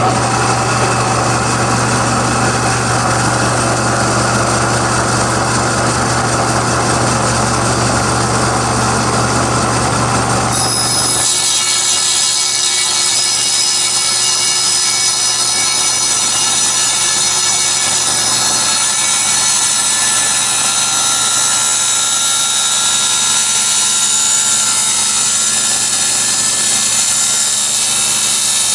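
Table saw fitted with a 10-inch aluminium-cutting blade, running loud and steady while cutting aluminium door extrusion. It starts abruptly. About eleven seconds in, the low motor hum drops away and a high, ringing whine of blade on metal takes over.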